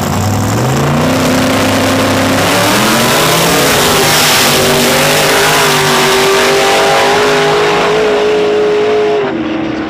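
Two drag cars launching side by side and running hard down the strip, one of them the nitrous big-block Chevy II Nova. The engine note climbs in pitch through the gears over the first few seconds, then holds a steady high note, and drops about nine seconds in as the drivers lift off.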